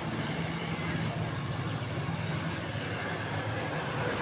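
Steady low rumble with hiss, like distant road traffic, rising slightly in level near the end.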